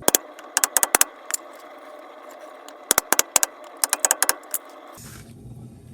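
Quick runs of sharp metallic taps and clinks in two bursts, the first right at the start and the second about three seconds in: a hammer tapping the new front wheel hub assembly onto the spindle.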